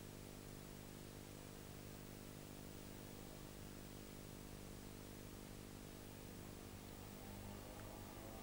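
Faint, steady electrical hum with hiss: the background noise of an old recording, with no other sound.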